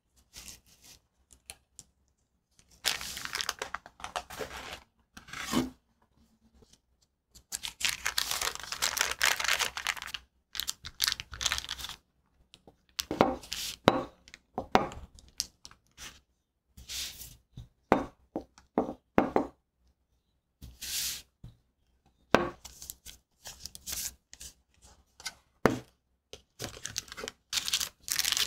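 Parchment paper rustling and crinkling as it is folded and creased by hand around craquelin dough and rolled over with a wooden rolling pin. It comes in several bursts of a second or two, with short quiet gaps between them.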